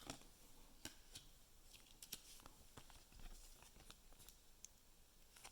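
Near silence with a few faint clicks and taps from trading cards being handled.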